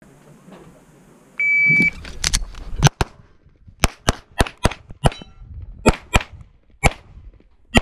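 A shot timer's start beep sounds once for about half a second. Then a 9mm major SPS Vista Star Open pistol fires a rapid string of about a dozen shots, several in quick pairs.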